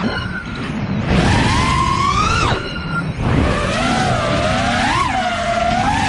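FPV drone's electric motors and propellers whining, the pitch shifting with the throttle. The whine climbs from about a second in and drops off sharply about two and a half seconds in, then wavers up and down, over a rumble of wind and prop wash.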